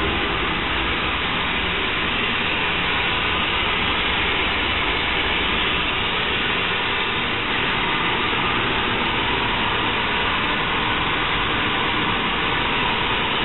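Nu-Way NGN15 S1S150 single-stage (on/off) natural gas burner firing at main flame: its combustion air fan and the flame make a steady rushing noise.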